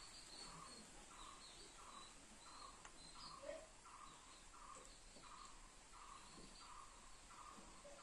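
A faint bird calling one short note over and over at an even pace, about three calls every two seconds, under quiet workshop room tone.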